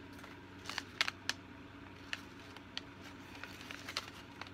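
A small foil-and-plastic tea sample pouch being handled in the hands: a scattering of short, sharp clicks and crinkles about once or twice a second over a faint steady hum.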